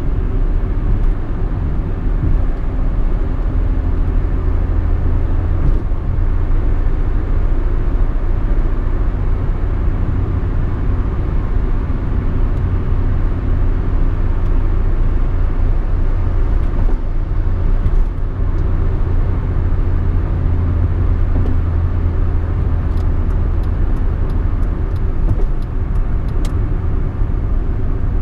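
Peugeot 206 being driven: steady engine and road rumble, with a run of light, evenly spaced ticks near the end.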